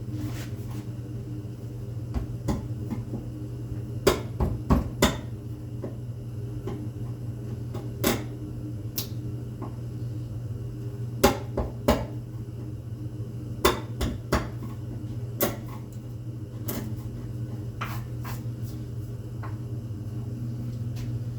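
Steel chisel chipping and scraping hardened epoxy off a wooden board: irregular sharp clicks and taps, a few of them close together, over a steady low hum.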